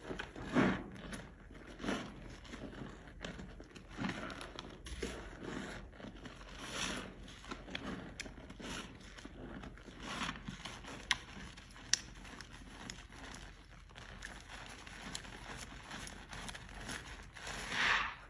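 Soaked, mushy soap being scraped and squished in a run of soft, wet strokes, about one every second or two, with louder ones just after the start and near the end.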